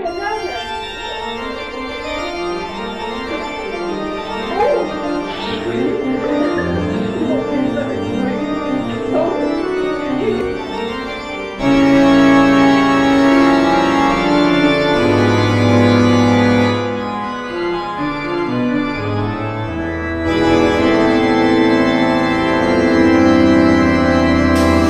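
Background music with held organ-like chords; it changes and gets louder about twelve seconds in.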